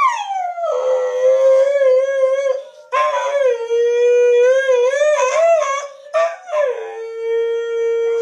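Husky howling in three long howls, the first opening with a slide down in pitch, the second wavering up and down, the last held steady.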